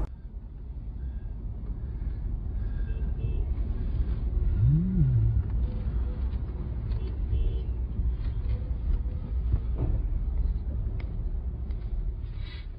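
Steady low road-and-engine rumble of a moving car, heard from inside the cabin, with a brief tone that rises and falls about five seconds in.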